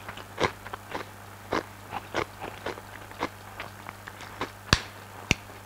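A person chewing a mouthful of fried rice: small, irregular wet clicks and crunches from the mouth, close to a clip-on microphone, over a faint steady hum. Near the end come two sharp clicks of the spoon or fork against the plate.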